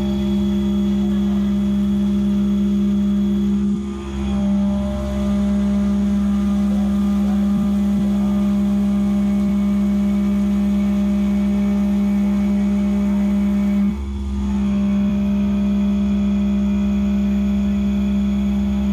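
Skyfire SVM-2 CNC mill milling an aluminium block with flood coolant running: a loud, steady cutting tone with a lower hum beneath it. The tone breaks off briefly twice, about 4 seconds and 14 seconds in, then carries on.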